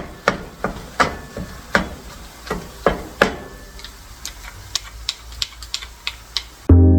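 Kitchen clatter: a run of irregular knocks and clicks as things are handled and set down. Electronic music with a beat starts near the end.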